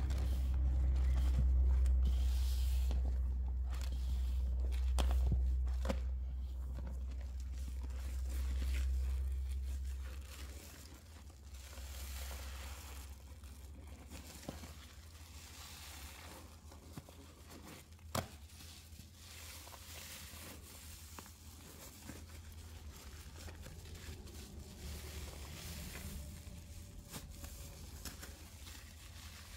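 A sponge loaded with shaving cream and dish soap being squeezed, its foam giving a dense run of small crackles. A low rumble lies under it for the first ten seconds or so, and there is a single sharper click about eighteen seconds in.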